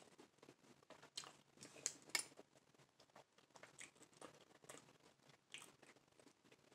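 Faint eating sounds: soft chewing and a plastic fork picking at taco fillings, a scatter of small clicks and crackles with a couple of sharper clicks about two seconds in.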